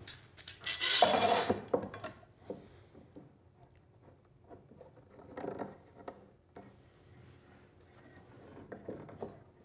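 Long steel bar clamps being put on a glued plywood sawhorse: metal clamp jaws scraping and knocking along the bars against the wood, with a loud rasping slide about a second in and quieter scrapes and clicks later as the screw handles are turned.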